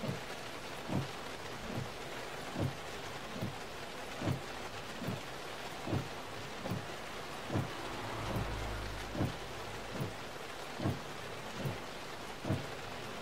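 Steady rain hiss, with a low rumble of thunder about eight seconds in. Under it, a low thump repeats evenly a little more than once a second and is the loudest thing heard.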